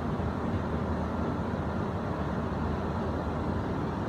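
Brushing machine running steadily, a continuous low rumble and hum with an even mechanical noise over it.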